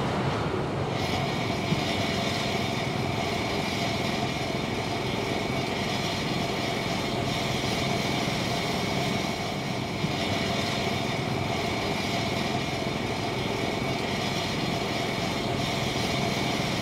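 Steady hum of small engines from motorbike traffic and construction machinery, with no break or change in pitch.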